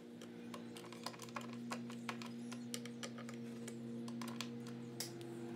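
Irregular light clicks and ticks of metal hardware and a hand tool as a handle is screwed onto a painted wooden cabinet door, over a steady low hum.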